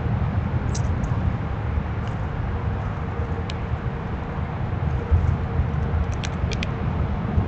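Steady low outdoor rumble, like distant traffic, with a few brief high chirps or ticks, one midway and a quick cluster near the end.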